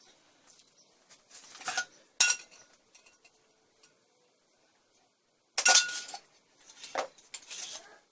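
Steel wrenches and the parts of a moped rear shock absorber clinking and clattering as the shock is unscrewed and taken apart by hand. The clinks come in a few short clusters with quiet gaps between them, the sharpest about two seconds in and just before six seconds in.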